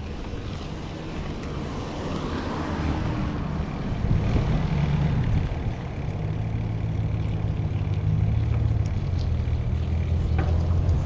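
Motor vehicle engines running close by: a steady low hum that shifts in pitch about four seconds in.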